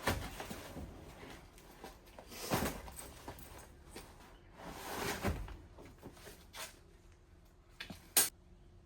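Stroud drag parachute pack being handled and forced closed against its pilot-chute spring: rustling and scuffing that swells at the start and again about two and a half and five seconds in, then a sharp click about eight seconds in.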